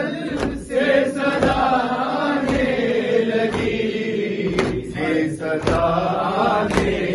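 Male voices chanting an Urdu noha, a Shia lament, through a microphone. Under the chant runs matam: mourners beating their chests with open hands, a slap about twice a second.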